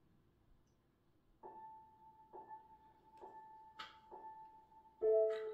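Quiet instrumental intro of a karaoke backing track: a soft keyboard note repeated four times about a second apart, after a second and a half of near silence, then a louder sustained chord near the end.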